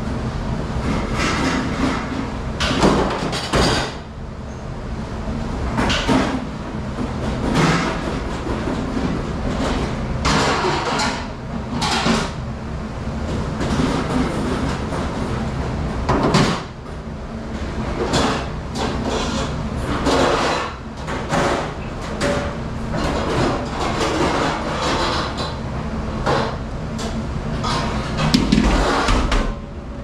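Busy commercial dish room: a dish machine running with a steady low hum, under frequent clattering of dishes, trays and steel ware being handled on stainless steel counters.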